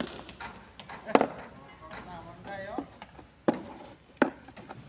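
Hammer knocking on the wooden boards around a pole footing: about four sharp, separate blows spaced unevenly, a second or more apart.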